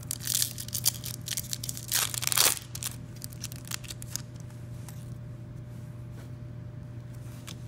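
Foil wrapper of a Topps trading-card pack being torn open by hand, with crinkling tears just after the start and again about two seconds in. These are followed by lighter clicks and rustles as the cards are slid out and handled. A steady low hum runs underneath.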